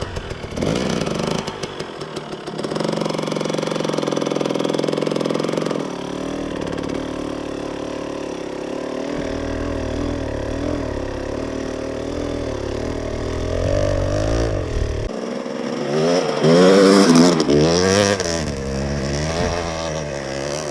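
Two-stroke KTM 250 EXC dirt bike engine running under throttle. Its pitch rises and falls repeatedly in the last few seconds as the throttle is worked.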